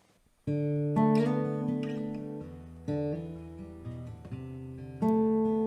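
Guitar playing the song's introduction, starting about half a second in: ringing chords and picked notes, with new chords struck about a second in, near three seconds and near five seconds.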